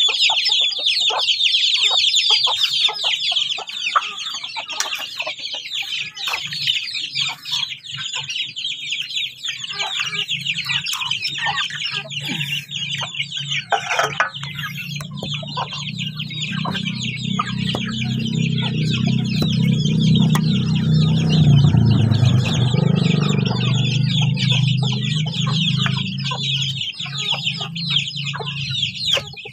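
A flock of village chickens with many chicks peeping and clucking continuously in a dense chatter. A low hum swells up in the middle and fades near the end.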